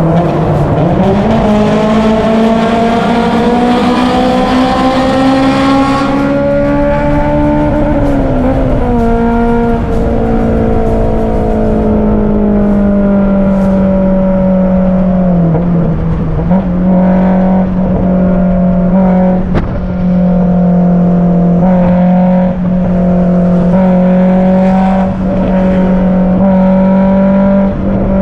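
Honda S2000's four-cylinder engine and Varex valved exhaust, heard from inside the cabin under hard acceleration. The revs climb for about eight seconds, drop at a gear change, then hold steady at high revs. A few short knocks come in the second half.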